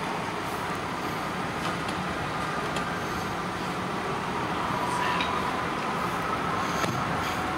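Steady city street noise of vehicles running, with a faint whine that rises slightly in pitch in the second half.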